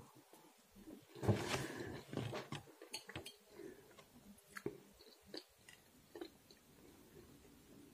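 Close-up chewing and biting of vermicelli rice pilaf, loudest about a second in, with a metal fork clicking now and then against the plate and teeth.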